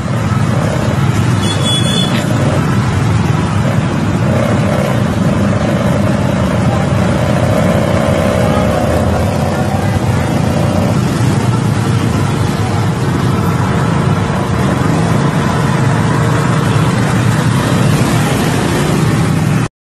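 Steady motor-vehicle and road noise while riding through city traffic close behind a scooter, engines running without a break.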